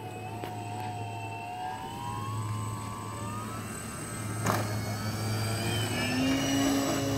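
Twin electric motors and propellers of a homemade RC airplane whining as they run up for takeoff, the pitch rising over the first few seconds and the sound growing louder, with a single sharp tick about halfway through.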